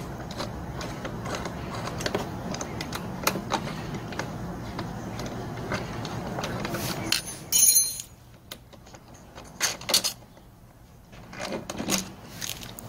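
Metal L-shaped star (Torx) key clicking and scraping on the carburettor mounting bolts of a Zenoah engine blower as the bolts are undone. A louder metallic clatter comes about two thirds of the way in, then a few scattered clicks as parts are handled.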